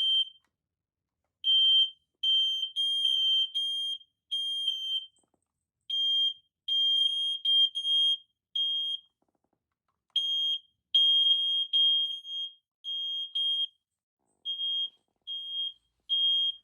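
Firex ionization smoke detectors sounding their test alarm: loud, high-pitched electronic beeps. The beeps come in uneven runs with short silent gaps between them, as a couple of units are tested in turn.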